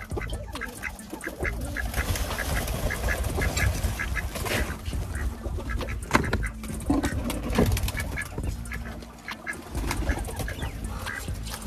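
Ducks quacking over and over, short repeated calls, above a steady low rumble. A few louder knocks or rustles come in the middle.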